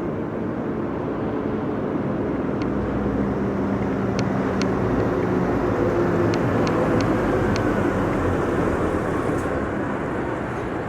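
Heavy road vehicle engine running at low speed as it passes, growing louder to a peak about two-thirds of the way through and then easing off, over steady traffic noise. Several short sharp ticks come in the middle.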